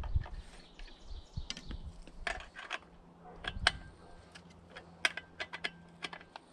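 Scattered light metallic clicks and clinks of an Allen key and bolts as bucking spikes are fastened onto a chainsaw, with a few sharper ticks near the middle and later on.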